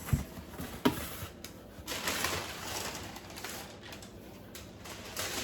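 Handling of the robot vacuum's packaging: two sharp knocks in the first second, then rustling and scraping, loudest for about a second from two seconds in.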